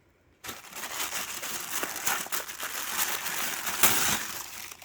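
Packaging crinkling and rustling as hands dig through a box of toys being unpacked, a dense run of small crackles starting about half a second in.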